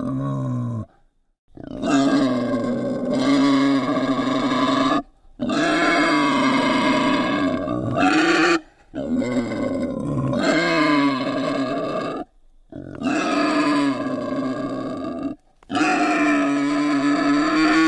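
Wild boar grunting in a run of long, drawn-out calls, each two to four seconds, separated by short breaks.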